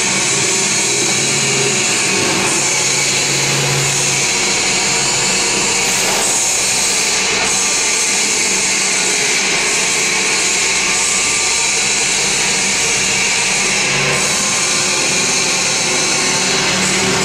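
Paper-pulp egg tray forming line running: a loud, steady hiss over the hum of its motors and pumps, with no break.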